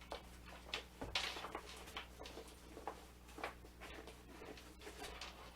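Light, irregular clicks and short rustles of a fabric welder's backpack being handled, its flaps, straps and fittings moved about.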